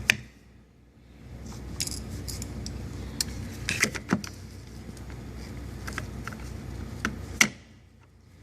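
Sharp metallic taps and clinks at irregular intervals, the loudest just after the start and about seven and a half seconds in: a hammer striking a small drift punch to drive the steel centre pin out of a door-handle rivet.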